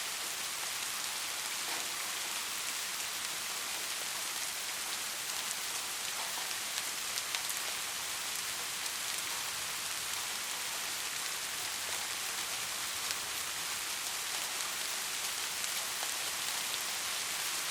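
Soft, steady rain falling on a surface: an even hiss of many drops with occasional single drops ticking through.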